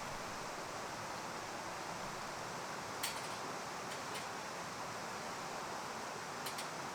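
Wood fire burning in a fire pit: a steady hiss with a few sharp crackles, around three and four seconds in and again near the end.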